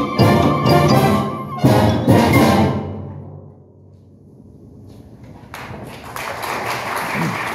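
Full symphonic wind band with timpani and percussion playing a series of loud accented final chords; the last chord rings out and dies away. About five and a half seconds in, audience applause starts.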